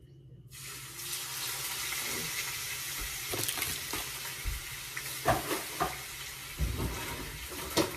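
Raw ground turkey going into a hot frying pan with olive oil: a steady sizzle that starts abruptly about half a second in, with several short knocks from handling the meat and pan in the second half.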